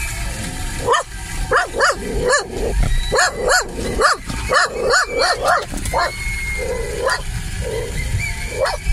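A dog barking, a quick run of sharp barks about three a second, then a few softer, lower calls and two more barks near the end, over the low rumble of the car on the road.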